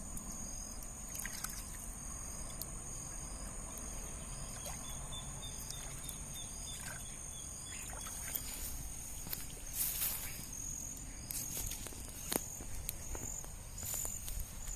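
Steady high-pitched chorus of insects, with small repeating chirps over it. A few short clicks and scrapes come in from about eight seconds in.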